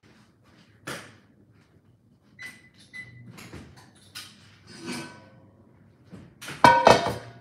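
Scattered knocks and clicks of things being handled in a kitchen, with one loud clatter that rings briefly about six and a half seconds in.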